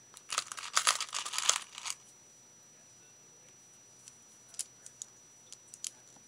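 Plastic beads clicking and rattling as they are handled on a beaded pokie tool: a dense run of clicks for about a second and a half near the start, then a few single light clicks.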